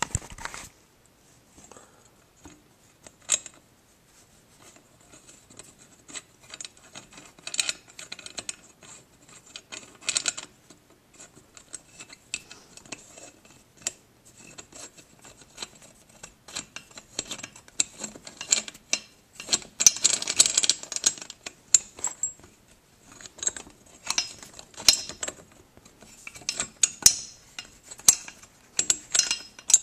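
Chrome drum throne post and metal antenna mounting bracket being handled and fitted together: scattered metal clicks, taps and clinks, with a longer stretch of scraping about two-thirds of the way through.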